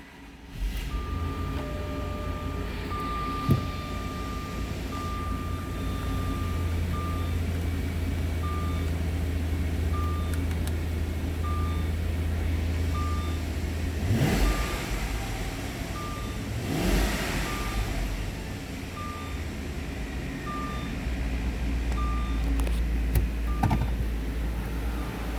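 Jaguar S-Type's 4.0-litre V8 running at idle, revved briefly twice, about fourteen and seventeen seconds in. A warning chime rings steadily for a few seconds, then beeps about once a second.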